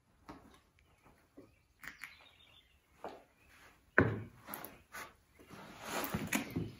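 Cast-iron Dutch oven set down with a sharp knock on a brick ledge about four seconds in, then scraped and shifted on the brick, with small knocks and rustles of handling before it.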